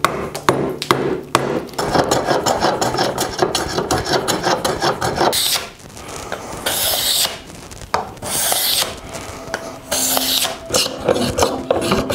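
A steel chisel paring wood inside a mortise, a quick run of short scraping cuts. From about halfway, four long hissing strokes of an edge tool shaving wood follow, each about half a second long.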